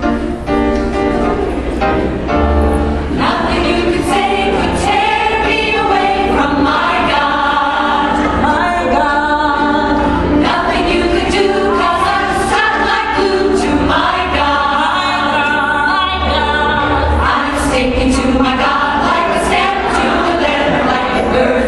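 An upbeat choir-style song: many voices singing together over a backing track with a steady beat and bass.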